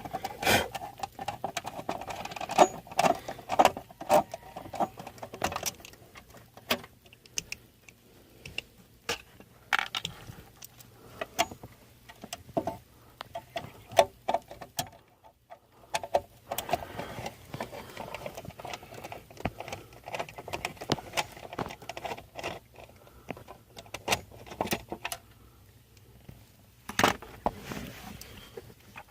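Irregular clicks, taps and light rattles of a screwdriver and plastic steering-column trim being handled while the screws holding the trim are taken out, with a short lull about halfway through.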